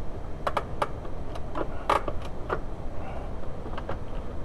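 Handbrake lever ratchet of a Mk3 VW A3 clicking as the lever is worked, about ten sharp, unevenly spaced clicks. The clicks are counted to check the freshly adjusted parking brake cables.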